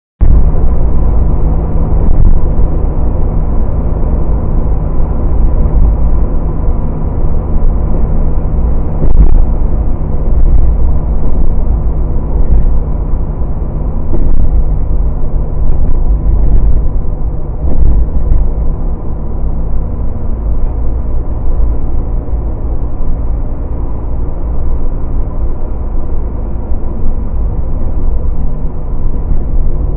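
Chevrolet Corvair driving at speed, heard from inside the cabin: a loud, steady rumble of engine, tyres and wind, with the drone of its air-cooled flat-six engine.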